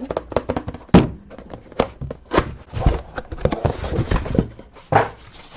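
Typing on a Qsenn DT65T compact keyboard: a quick, irregular run of key clicks and clacks, with heavier strikes about a second in and near three seconds.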